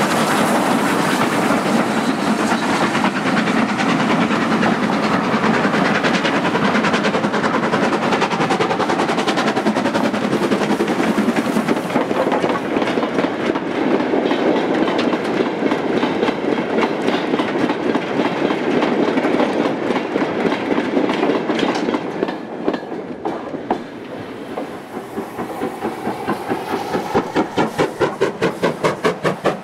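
Rebuilt Bulleid 'Battle of Britain' class steam locomotive passing close with a long train of mineral wagons, the wagons clattering steadily over the rail joints. The clatter fades after about twenty seconds, and near the end a regular pulsing beat of about three a second sets in.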